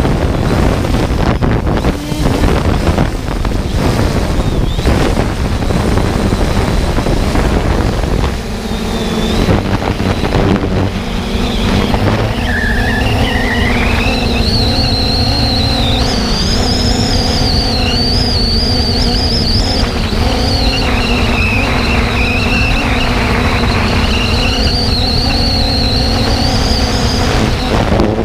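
Wind buffeting the microphone, then, from about ten seconds in, a quadcopter drone's motors and propellers whining steadily, the high pitch wavering up and down as the drone flies.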